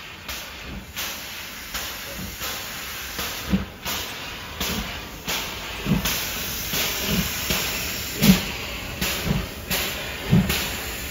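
Steam locomotive working slowly, with rhythmic exhaust chuffs about two a second over a steady hiss of steam. A deeper thump comes about once a second and grows louder.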